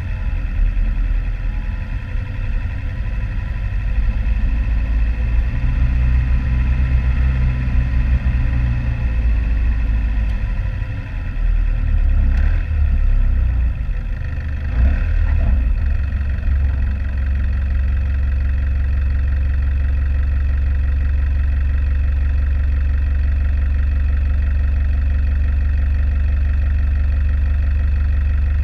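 A four-wheel-drive vehicle's engine running, a loud low hum that changes for a few seconds about halfway through and then holds steady.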